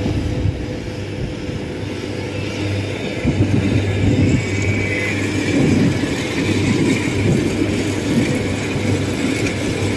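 Kubota rice combine harvester's diesel engine running steadily while it cuts, louder from about three seconds in.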